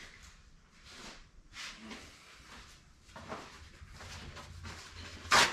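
Handling noises of tools and chainsaw parts on a workbench: faint rustles and light knocks, with one short, sharp, louder noise near the end.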